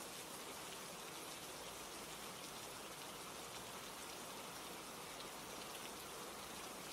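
Steady rain ambience, an even hiss of falling rain with a few faint scattered ticks.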